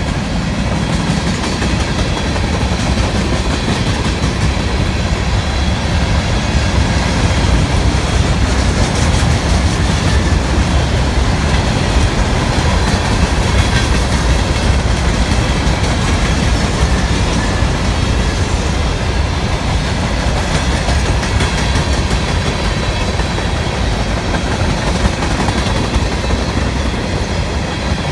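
Freight cars of a long freight train rolling past close by: a steady rumble of steel wheels on rail, with faint thin high ringing tones above it.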